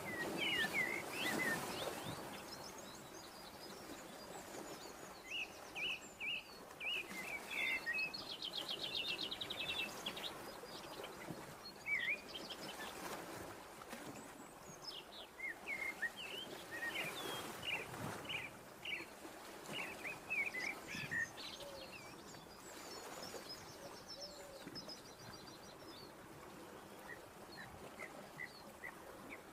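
Small birds chirping and trilling, short high calls scattered throughout with a rapid trill about a third of the way in, over a steady background hiss.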